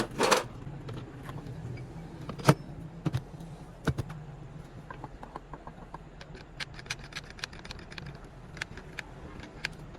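Metal tools and parts clinking and knocking over a low steady hum: one loud knock a couple of seconds in, a few more after it, then a run of light metallic ticks.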